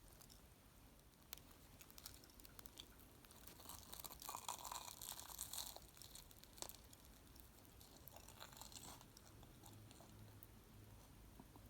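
Faint crunching and chewing as a baked curry bun is bitten and eaten, loudest about four to six seconds in, with a few scattered crackles.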